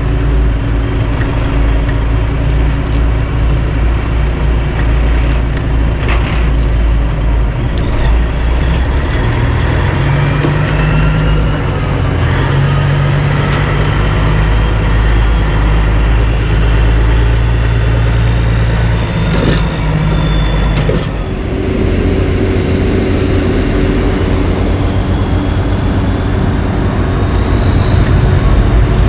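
Heavy diesel engines of a Kenworth tandem dump truck and the asphalt paver running steadily as the raised box unloads asphalt into the paver, with a few sharp clicks from the camera gimbal. The engine noise grows louder near the end as a second tandem dump truck pulls up.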